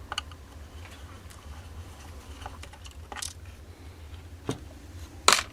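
Light scattered clicks and taps of a small screwdriver and tiny screws being worked out of a cuckoo clock's movement, with a brief scrape about three seconds in and a sharper click near the end.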